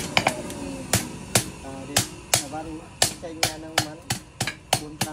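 A hand hammer striking a billhook blade on a steel post anvil, sharp metal strikes about twice a second that quicken to three or four a second in the second half. A voice sounds underneath from about two seconds in.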